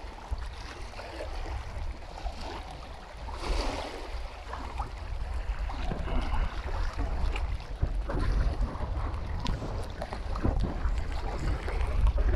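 Wind buffeting the phone's microphone as a low rumble, with small waves lapping and splashing in shallow lake water.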